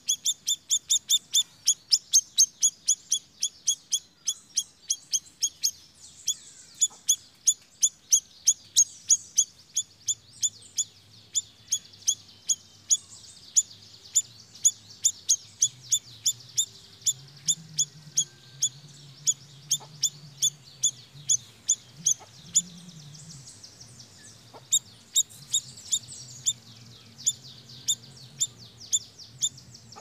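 Caged siri-siri songbird calling in a fast run of short, sharp high chips, about three a second. About halfway through the run softens into a fainter chatter, then the chips come back strongly near the end.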